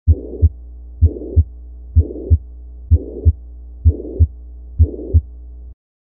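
Heart sounds of mitral regurgitation: six beats at about one a second, each a pair of thuds (S1 and S2) with a blowing holosystolic murmur filling the gap between them, over a low steady hum. The recording stops shortly before the end.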